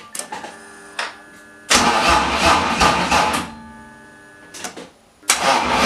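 BMW E46 engine turned over by its starter in two bursts of cranking, about two seconds each, with a pulsing rhythm and never catching. There is no spark at the plugs: the ECU is not firing the ignition.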